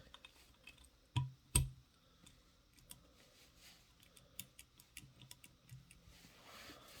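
Small metal parts of a 3/8-inch ratchet being handled on a desk while being oiled: two sharp knocks about a second in, then light, irregular metal ticks and clicks.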